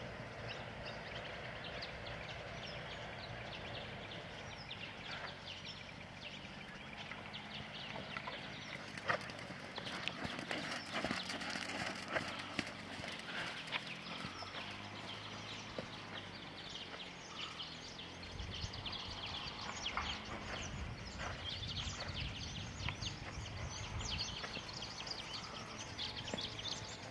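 Horse's hooves striking a sand arena surface as it is ridden, a soft repeated thudding with scattered sharper ticks.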